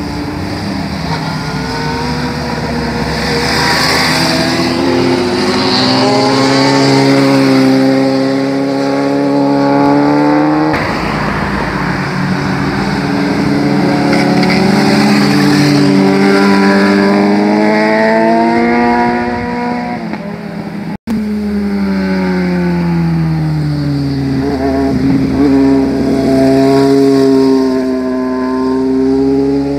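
Sport motorcycle engines revving through a hairpin bend, one pass after another, pitch rising and falling as the bikes shift and accelerate away. The sound changes abruptly twice as clips are cut together.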